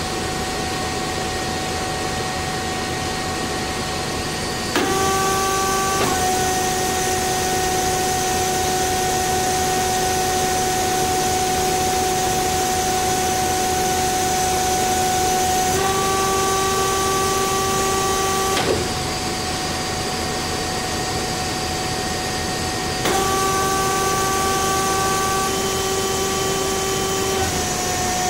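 DoAll C4100NC automatic horizontal band saw running with a steady hum and whine. The whine steps louder and slightly higher and then drops back several times as the machine cycles its hydraulic vise.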